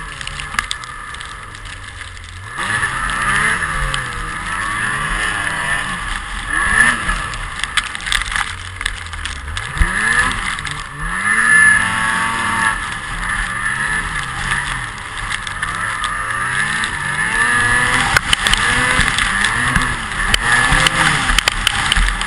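A vehicle engine revving up and down over and over, its pitch rising and falling every second or two over a steady hiss. It gets louder about two and a half seconds in.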